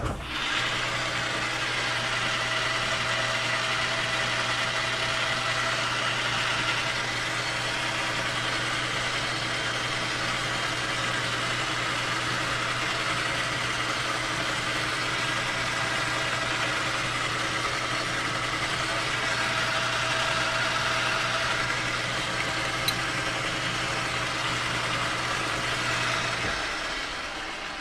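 Metal lathe running steadily, its motor and drive giving a constant hum, then winding down near the end.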